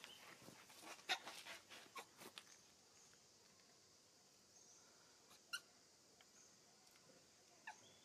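Faint animal squeaks and clicks: several short clicks in the first two seconds, a brief squeak about five and a half seconds in and a short falling squeak near the end, over a faint steady high hiss.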